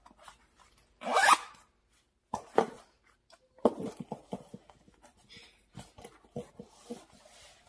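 Tall leather boot being pulled on and zipped up: a few short zipper pulls about a second apart, then small knocks and rustling as the boot is handled.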